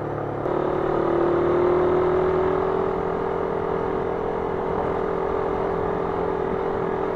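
Suzuki Raider 150 carburetted single-cylinder four-stroke motorcycle engine running steadily while riding. About half a second in it grows louder and its note rises a little over the next two seconds, then holds steady.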